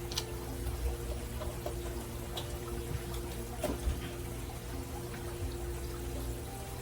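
Chicken broth being poured into a crockpot full of ingredients: a steady liquid pour, with a few light clicks and a steady low hum underneath.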